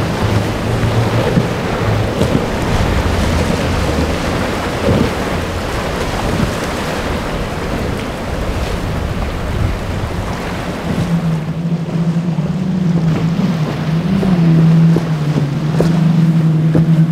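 Outboard engines of a center-console boat running at speed through choppy waves, under wind noise on the microphone and the hiss of spray. A steady engine drone stands out from about two-thirds of the way in.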